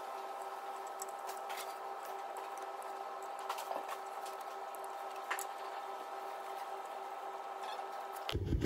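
Faint scattered clicks and light metallic taps as the new timing belt tensioner is fitted and its bolts nipped up by hand, over a steady background hum.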